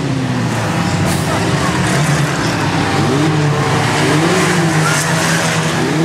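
Race mini trucks' engines running on a speedway oval as the trucks pass close by, engine pitch rising and falling as they rev through the turns.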